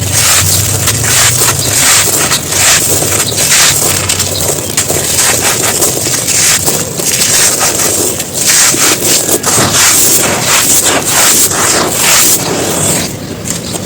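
Dry chunks of mud or earth being crumbled, a dense run of crunching and crackling that goes on almost without a break and eases a little near the end.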